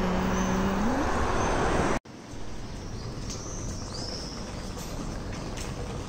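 Passing motor traffic with a steady engine tone that rises in pitch about a second in, then, after a sudden cut, quieter city street ambience with small birds chirping now and then.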